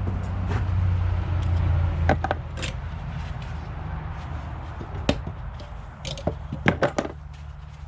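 Scattered sharp clicks and knocks of hand tools being handled, about a handful spread out, with a close pair of snaps near the end, over a steady low hum.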